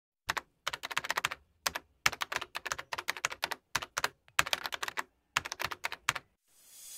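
Keyboard typing sound effect: runs of rapid key clicks with short pauses between them, as on-screen text is typed out. Near the end a hiss begins to swell.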